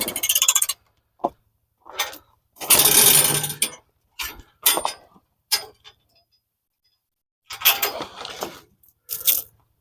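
Four-wheeler's engine idling with a low, even putter, heard in broken stretches, with a louder burst of noise about three seconds in and a few short clunks.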